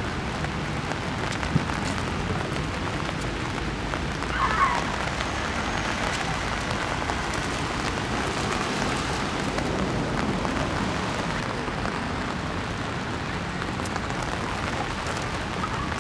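Steady rain falling on a wet path and grass, an even hiss. A short high chirp sounds about four and a half seconds in.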